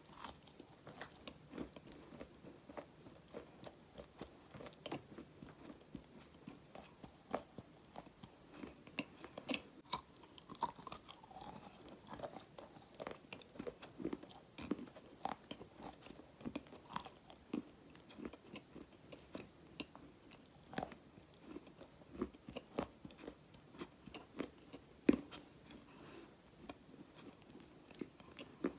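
Close-up crunching and chewing of dry black edible clay: many small sharp cracks, a few each second, as the clay breaks between the teeth.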